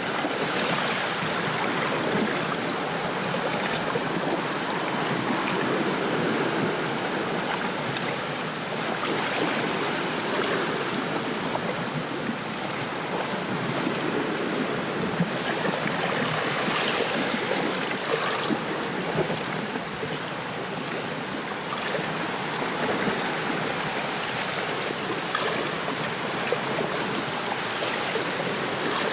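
Wind rushing through a lakeside reed bed, with small waves lapping at the shore; a steady rush that swells and eases slightly, with faint ticks of water.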